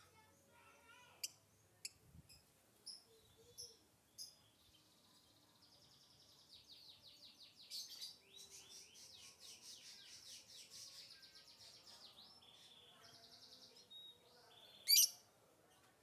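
Lovebird calling: a few short, sharp chirps, then a long, fast chattering trill lasting about eight seconds, and one loud shrill call near the end.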